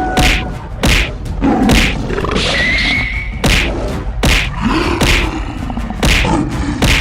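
Animated-fight sound effects: about eight hard thuds and whacks, roughly one a second, with gliding animal cries between the hits, over background music.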